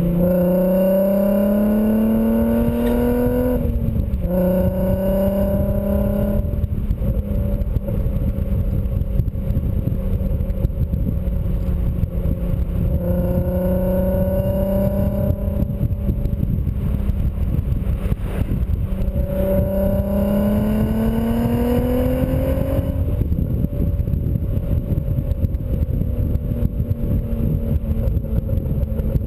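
2004 VW R32's 3.2-litre VR6 through a BlueFlame non-resonated cat-back exhaust, pulling hard with a rising note. The note drops at an upshift about four seconds in, then the engine cruises. It climbs again around twenty seconds in before settling into a steady cruise. Heavy wind and road rush on the microphone underlie it throughout.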